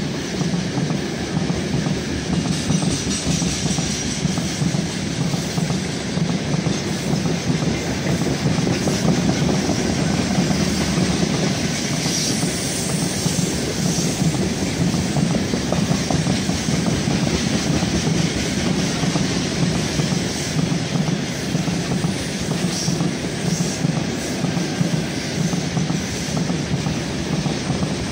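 Freight wagons loaded with coal rolling past on the rails, a steady noise of wheels running over the track.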